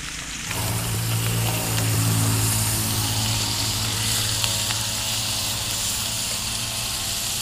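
Mackerel pieces frying in oil in a ceramic pan on a portable gas stove, with an even sizzling hiss. A steady low mechanical hum comes in about half a second in and is the loudest sound.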